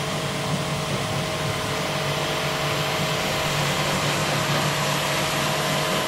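Electric high-pressure washer (jet pump) running, its water jet spraying onto a window air conditioner's coil to wash it: a steady hiss of spray over a steady motor hum.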